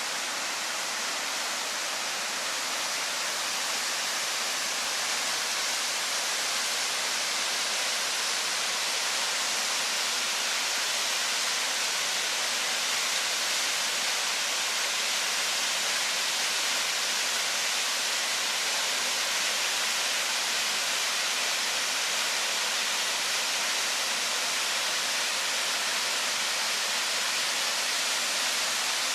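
Waterfall: water falling and splashing in a steady, even rush that holds at one level throughout.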